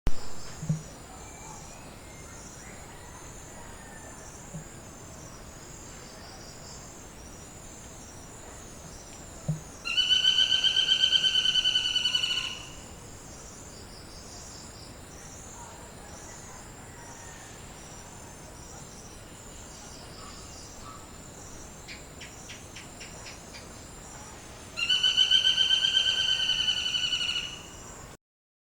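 Rufous woodpecker calling: two loud bouts of a rapid run of ringing notes, each lasting about two and a half seconds, one about ten seconds in and one near the end. A steady chorus of crickets or other insects runs underneath, with a brief knock at the very start.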